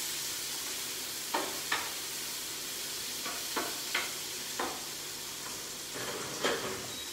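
Onion, mushrooms and lardons sizzling in a frying pan, with a utensil scraping and knocking against the pan several times as they are stirred.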